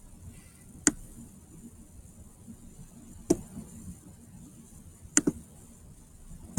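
A few sharp, separate clicks from a computer mouse and keyboard, a couple of seconds apart, with a quick double click about five seconds in.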